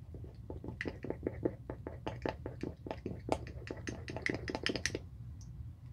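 Toothbrush swished quickly in a glass tumbler of soapy water, rattling and clicking against the glass with water sloshing, about five strokes a second. The strokes stop about five seconds in.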